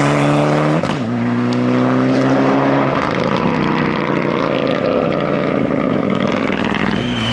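Mitsubishi rally car engine accelerating hard, its note rising, with a quick upshift about a second in and a second climb. After about three seconds the clear engine note gives way to a rougher, uneven sound.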